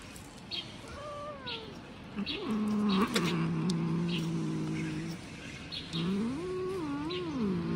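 Domestic cat growling and yowling: a falling moan about a second in, then a long low drawn-out growl, then a rising, wavering yowl near the end. It is the warning sound of a cat guarding food from another cat.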